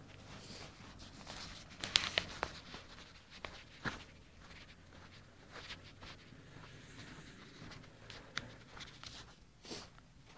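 Faint, uneven footsteps on snow, with a cluster of louder scuffs and knocks about two seconds in.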